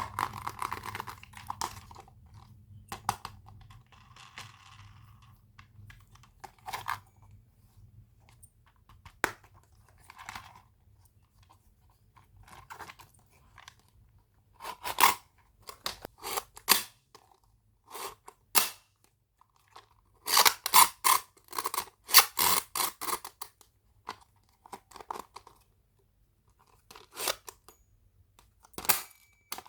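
Plastic toy packaging crinkling, crackling and tearing as it is handled close to the microphone, in irregular bursts with short pauses, busiest for a few seconds past the middle.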